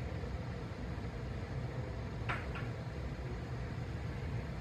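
Steady low background hum with two faint clicks about halfway through.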